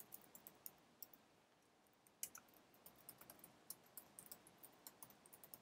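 Faint keystrokes on a computer keyboard: sparse, irregular clicks coming a few at a time with short pauses between.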